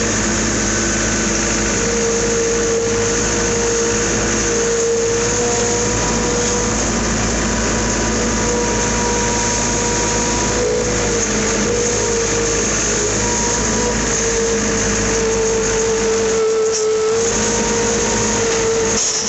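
Farm machine engine running steadily, with a constant whine that wavers slightly in pitch.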